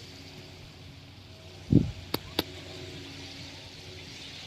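A short, dull low thump a little before halfway, then two sharp clicks a quarter-second apart, over a steady faint outdoor hiss.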